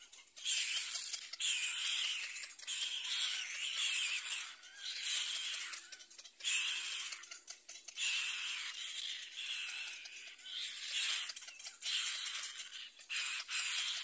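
Cormorant chicks begging to be fed: a run of hoarse, hissing calls, each about a second long, with short breaks between.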